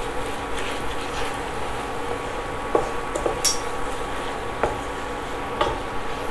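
Chili sambal sizzling in oil in a frying pan as a wooden spatula stirs it, with about five sharp scrapes and taps of the spatula against the pan in the second half. The sambal is being cooked until fully done.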